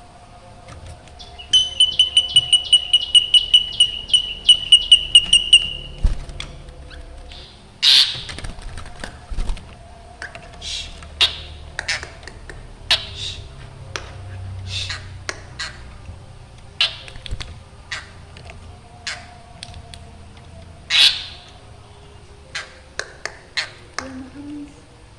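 Black drongo calling: a fast run of about twenty ringing, repeated notes over some four seconds, then scattered short, harsh calls, two of them louder.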